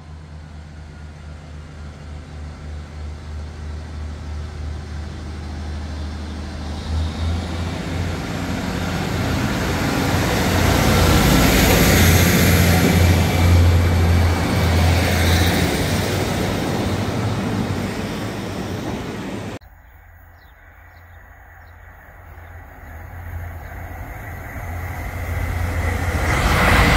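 Diesel train approaching and passing at speed, its rumble and low engine drone building to a peak about halfway through. It cuts off suddenly and then starts building again as another train approaches.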